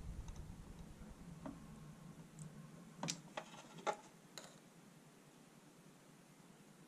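A few faint, sharp metallic clicks and taps as a machine vice is loosened and a steel bicycle sprocket with a pressed-in ball bearing is taken out of it, over a low hum that fades away in the first couple of seconds.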